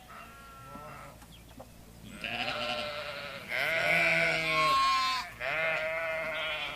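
Sheep bleating: a faint short bleat, then three loud drawn-out bleats in close succession.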